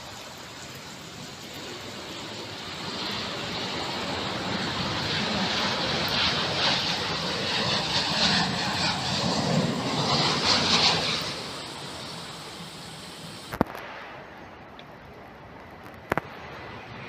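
A large vehicle passing: a loud rushing noise that builds over several seconds, peaks, then fades away. After that comes an abrupt drop to a quieter background with a couple of sharp clicks.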